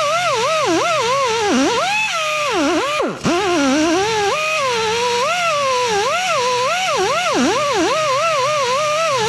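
A high-speed grinder whining as it is worked against rough factory spot welds in a car's sheet-metal engine bay. Its pitch keeps dipping and recovering as it is pressed in and eased off, and it drops almost to a stop about three seconds in before spinning back up.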